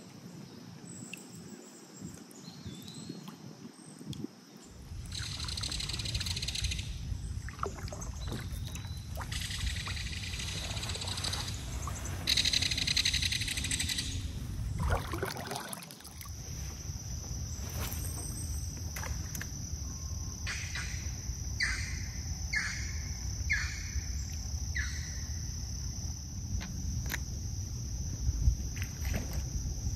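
Kayak paddle strokes swishing in a slow river with insects buzzing, over a low rumble; a few short bird chirps come in about two-thirds of the way through, and a steady high insect trill sets in for the second half.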